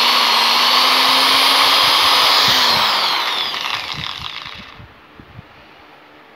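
INGCO 650 W impact drill running steadily at full speed with a high whine, then the trigger is let go about two and a half seconds in and the motor winds down, falling in pitch, with a few light clicks as it stops.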